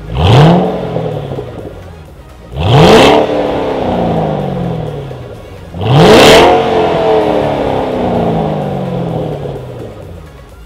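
Supercharged 5.4-litre V8 of a Ford Mustang Shelby GT500 through a Corsa Sport axle-back exhaust, revved three times from idle: each rev rises sharply, then falls slowly back to idle over two to three seconds.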